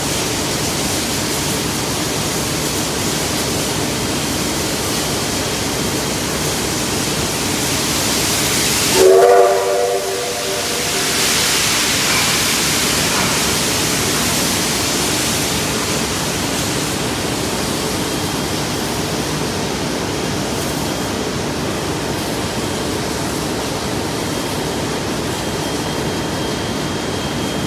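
Steam locomotive R707 hissing steadily with steam. About nine seconds in it gives one short, loud whistle blast of several tones sounding together, followed by a brighter rush of escaping steam.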